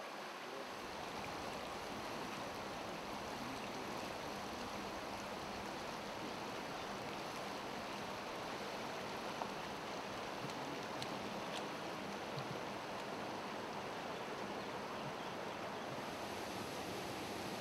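Steady rushing of a shallow mountain stream running over stones.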